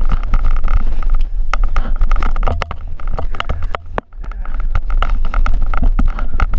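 A camera's microphone jostled up close by a dog: a loud low rumble with many quick knocks and scrapes against the mic, dipping briefly about four seconds in.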